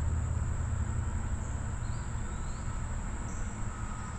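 Steady high-pitched insect chorus droning without a break, over a low rumble.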